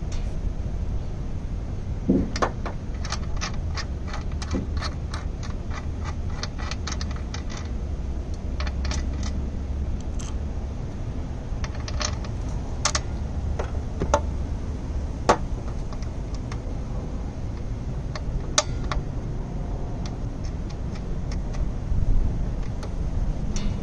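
Small metallic clicks and clinks, scattered and irregular, of battery-cable ring terminals and nuts being fitted by hand onto a power inverter's terminal posts, over a steady low outdoor rumble.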